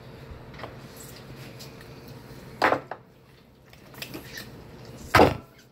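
Two sharp clattering knocks of utensils against dishes, about two and a half seconds apart, the second the louder, over a faint steady hum.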